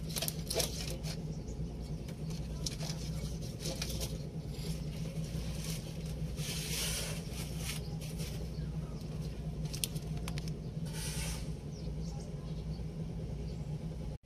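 Scattered clicks and short rustling sounds of hands handling things, over a steady low hum.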